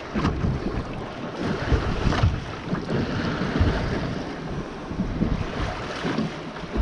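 Wind buffeting the microphone in irregular gusts, over rough lake waves washing around a small fishing boat.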